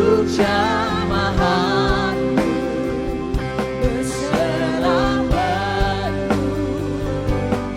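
Gospel-style worship song with a singer's voice wavering over sustained instrumental chords and a steady beat.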